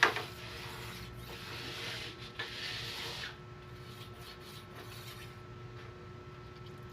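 A sharp knock, then rasping rubbing strokes of steel against an abrasive for about three seconds, typical of hand-sharpening a thickness-planer blade. A quieter steady hum follows.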